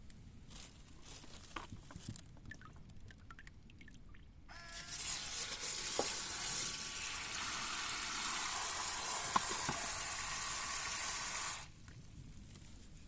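Water rushing from a plumbing fixture: a loud, even hiss that starts suddenly about four and a half seconds in and cuts off about seven seconds later, with a faint whistle as it opens.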